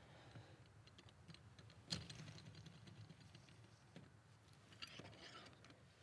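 Faint clicking of a Ko-ken Z-Series free-turn cross wrench as it is turned on a lug nut, with one sharper click about two seconds in and a few light ticks after.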